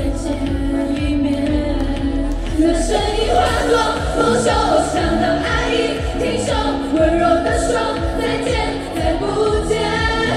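A pop song performed live by a girl idol group, several female voices singing together over a steady beat. The singing grows fuller about three seconds in.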